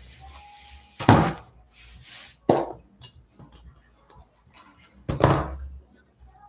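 Shrink-wrapped cardboard Magic: The Gathering booster boxes being handled and set down on a playmat. There are three dull knocks, about a second in, about two and a half seconds in and just after five seconds, with rustling and sliding of the wrapped boxes between them.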